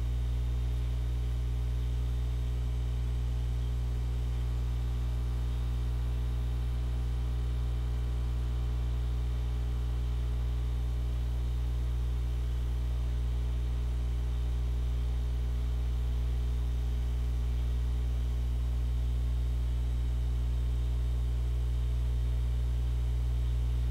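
Steady electrical mains hum and buzz: a low drone with a ladder of higher overtones, unchanging in pitch and level.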